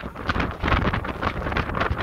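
Wind buffeting the microphone over the rush of water along the hull of a sailboat moving fast under sail, rising and falling unevenly.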